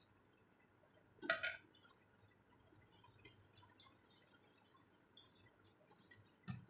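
Faint sounds of food being handled and mixed on a plate: a brief sharp clink or wet smack about a second in, then small scattered ticks and squishes, and a soft knock near the end.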